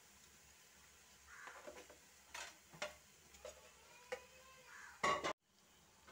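Oil sizzling faintly around fritters frying in a nonstick pan, with a few sharp clicks and knocks of metal tongs against the pan as pieces are lifted out. A louder clatter comes about five seconds in, and then the sound cuts off suddenly.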